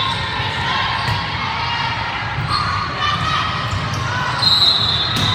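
Indoor volleyball rally: sneakers squeaking on the court, a ball being struck near the end, and players' voices echoing around a large gym.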